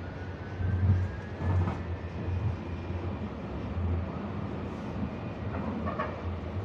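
Inside a moving subway car: the steady low rumble of the train running on the rails, with a faint high whine and a few soft knocks.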